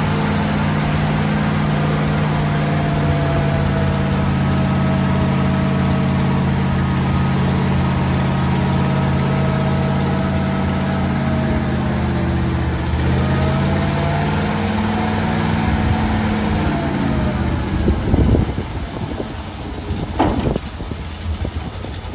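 Ford L-600 dump truck's engine running steadily while the dump bed is raised on its hoist, its pitch dipping and recovering a little past the middle. Near the end the engine note drops away and two sharp clunks are heard.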